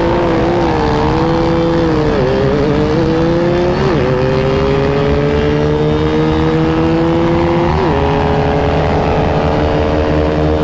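Motorcycle engine running hard at speed, its pitch held high and climbing slowly, with brief sharp dips about two, four and eight seconds in.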